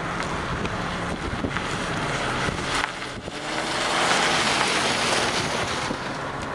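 Wind buffeting the microphone, a steady rushing that swells about four seconds in.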